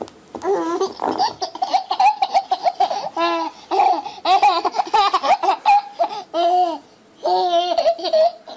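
Baby laughing in a string of high-pitched bursts, with a short pause about seven seconds in before one more peal.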